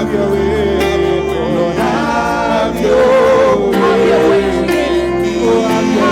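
Worship band playing with singers holding wordless sung lines over sustained keyboard and bass.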